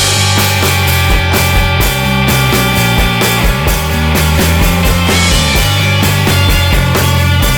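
Loud rock music with a driving beat, drums and bass.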